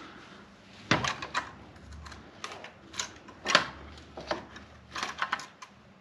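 Hand tools clicking and knocking irregularly against metal and plastic parts at the radiator fan shroud in a Jeep's engine bay, with one louder knock a little past the middle.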